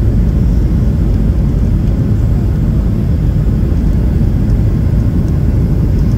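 Steady low cabin noise of a Boeing 737 airliner on approach, engines and airflow heard from a window seat over the wing with the flaps extended.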